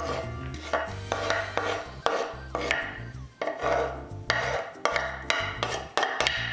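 A metal spoon scraping chopped onion off a wooden cutting board into a plastic bowl, a quick run of scrapes and taps about three a second.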